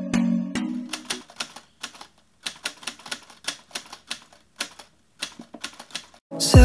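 Typewriter sound effect: a run of irregular key clacks with short pauses as a text caption is typed out. It opens with a brief chime and a couple of clicks, and music comes in loudly near the end.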